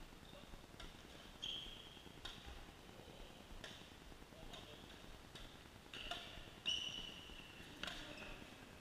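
Badminton rally: irregular sharp hits of rackets on shuttlecocks, with short high squeaks of sports shoes on the hall floor, the loudest squeak about two-thirds of the way through. Faint overall.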